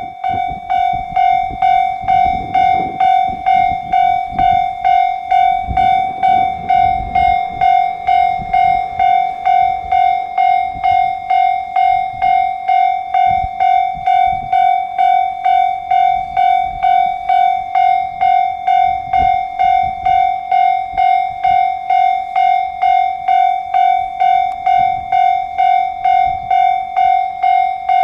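Japanese railway level-crossing warning bell ringing, a single pitched ding repeating evenly about twice a second, with a low irregular rumble underneath.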